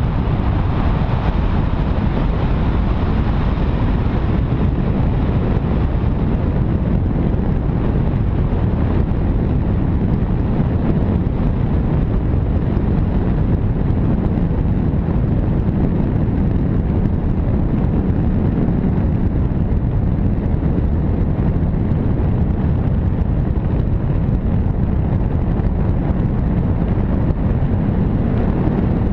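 Steady wind noise: rushing air buffeting the microphone of a camera carried through the air on a tandem paraglider in flight, loud and even throughout, heaviest in the low rumble.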